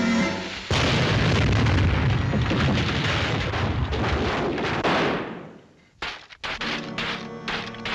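Cartoon explosion or crash sound effect: a sudden loud burst of noise with a deep rumble, starting about a second in and dying away over about four seconds. Short knocks and music follow near the end.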